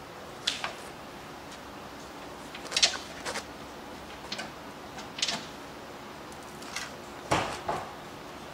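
Irregular sharp clicks and clanks of metal parts and tools being handled and fitted while reassembling a concrete floor grinder. About nine of them, the loudest about three seconds in and another near the end, over a faint steady background hum.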